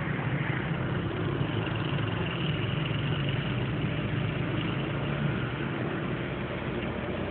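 Vehicle engine running steadily under road noise, heard from inside a moving vehicle, with a low, even hum.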